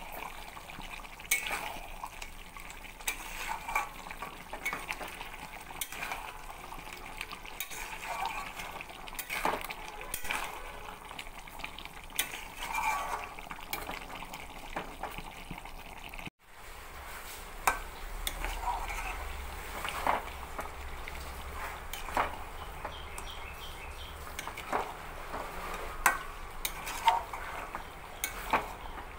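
A spatula stirring chicken curry in a metal pot, scraping and knocking irregularly against the pot's sides, over a steady sizzle of the cooking. The sound cuts out for a moment just past halfway.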